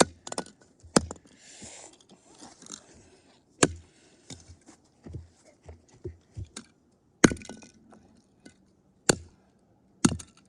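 A cheap toy car being smashed: six loud sharp blows, spread unevenly, with smaller knocks between them and a stretch of scraping about two seconds in.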